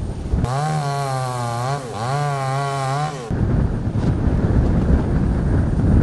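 A chainsaw running at high revs for about three seconds, its pitch dipping once midway and climbing back. Before and after it, wind buffets the microphone.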